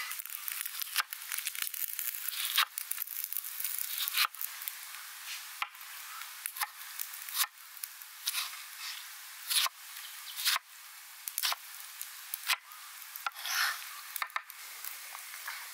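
Chef's knife slicing and dicing ripe tomatoes on an end-grain wooden chopping block: a soft wet squish through the flesh, then a sharp knock as the blade meets the wood, about once a second, unevenly spaced.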